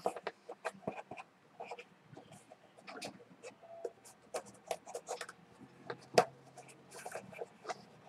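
Hands opening a cardboard pizza box, peeling off its sealing tape: a string of small irregular scrapes, rustles and clicks, with one sharper click about six seconds in.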